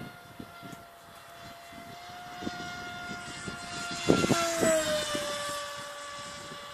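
Brushless electric motor and 5x5 propeller of an RC flying wing whining at a steady speed as it flies past: the sound swells about four seconds in, the pitch drops as it passes, then it fades. A few wind thumps on the microphone come as it passes.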